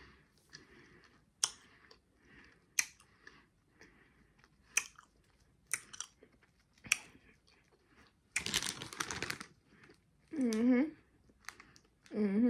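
Someone chewing candy-coated chocolate sweets like M&M's: sharp crunches about once a second with soft mouth noises between them. About eight seconds in a snack bag rustles briefly. Near the end come two short wavering hums of the voice.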